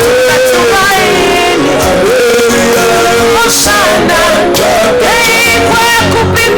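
A worship song playing: a sung melody over instrumental backing, loud and continuous.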